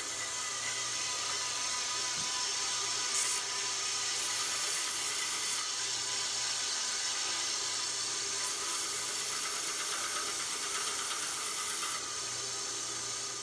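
Bench strip sander running steadily, its motor and belt making a loud hiss and whir while an aluminum block is sanded on the belt; the sound drops away as it is switched off near the end.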